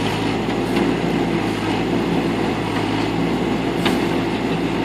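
Backhoe engine running steadily under load as the bucket digs out a stump, with a few light knocks from the bucket and arm.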